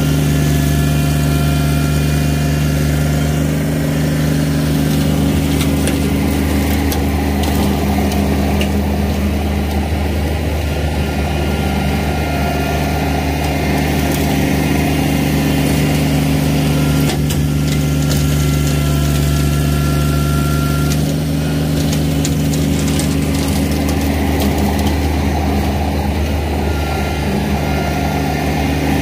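Compact diesel tractor engine (Kubota BX2380) running steadily, with a faint high whine coming and going over it.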